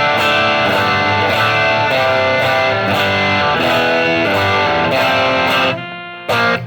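Electric guitar with overdrive, played through a Mooer Ampero II multi-effects unit's native Marshall 18-watt-style amp model and a Fender Tweed 1x10 cabinet IR. Notes and chords ring out in a steady, changing line, break off near the end, and a short stab follows.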